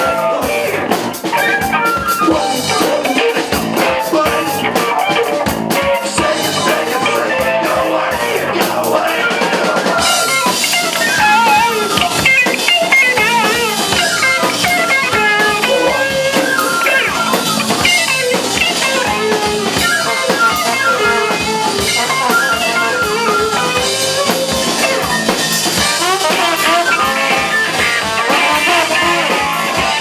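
Live band playing: electric guitar and drum kit, with flute and trombone. About ten seconds in, the sound gets brighter and fuller.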